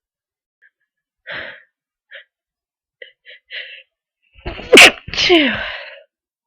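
A person with a head cold sneezing: a few faint short breaths, then a loud sneeze about five seconds in that ends in a falling voiced tail.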